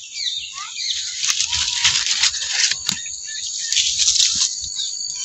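Small birds chirping and twittering, many short calls gliding up and down in pitch, with a few sharp clicks among them.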